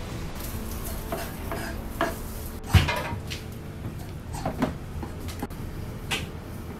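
Irregular kitchen clatter: a knife knocking on a cutting board and utensils and dishes being handled, a handful of separate knocks and clicks with one sharper, louder knock nearly three seconds in.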